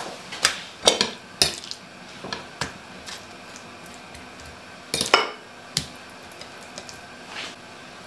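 Plates and cutlery clattering as food is served: a few sharp clinks and knocks, the loudest cluster about five seconds in, over a steady faint hiss.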